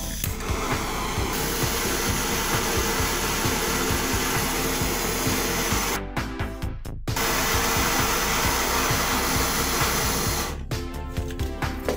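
Handheld butane torch burning with a steady, loud hiss of gas and flame. It breaks off for about a second near the middle and stops shortly before the end, leaving background music with a beat.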